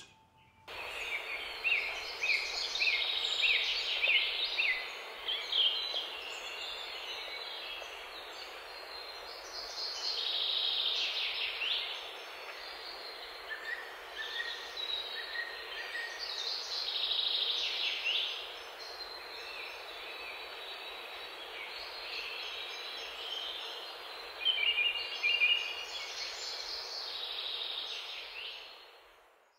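Chorus of songbirds chirping and trilling over a steady background hiss, fading out near the end.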